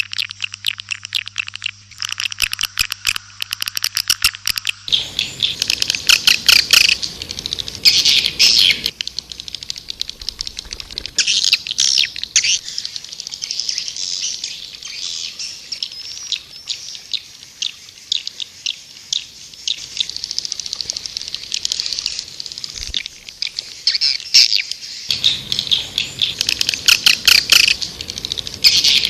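Calls of white-nest swiftlets: dense, rapid chirping and buzzy twittering in many overlapping trains. This is a swiftlet calling sound of the kind played to lure the birds into a swiftlet house. A steady low hum runs under the first five seconds and stops abruptly.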